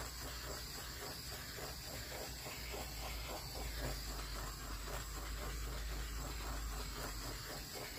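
Handheld torch flame hissing steadily as it is passed over the spinning epoxy-coated tumbler to pop bubbles in the wet resin.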